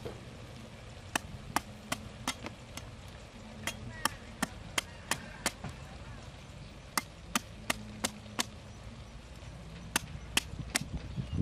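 Cleaver chopping into the husk of a green coconut: sharp strikes, about two or three a second, in short runs with brief pauses.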